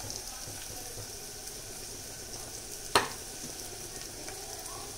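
Sliced onions with ginger and turmeric sizzling in oil in a pot on a gas burner, a steady hiss. A single sharp knock comes about three seconds in.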